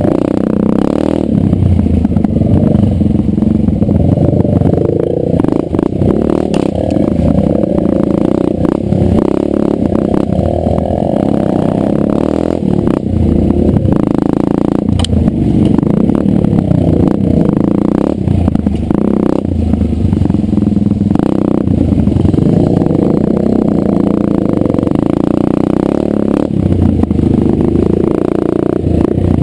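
Dirt bike engine running on the move, its throttle rising and falling as it rides a rough dirt trail, with frequent knocks and rattles from the bike jolting over bumps.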